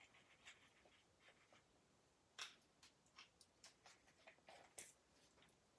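Near silence broken by scattered faint clicks and taps from a small spice shaker being shaken over raw steak and handled. The two sharpest taps come about two and a half seconds in and near the end.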